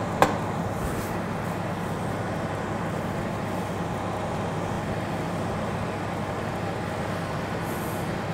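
Electric fan oven's fan running with a steady, even whirring, the oven door open and the oven hot. A single sharp click about a quarter of a second in.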